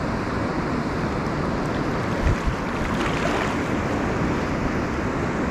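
Steady rushing of river water, with a single low thump a little over two seconds in.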